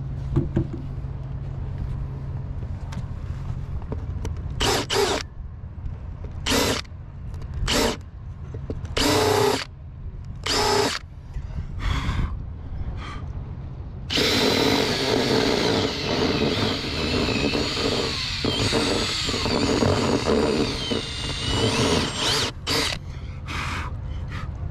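Cordless Makita drill with a countersink bit cutting into the fiberglass cabin top, countersinking old holes before they are filled with putty: several short bursts, then one long run of about eight seconds, then a few more short bursts near the end.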